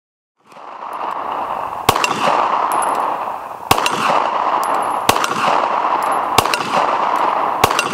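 Handgun fired five times in slow, deliberate shots about one and a half seconds apart over a steady hiss, with a brief high ring after each shot.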